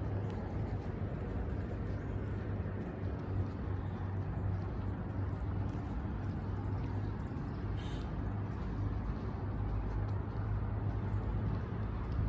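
Steady low hum of outdoor campus ambience, with a brief high chirp about eight seconds in.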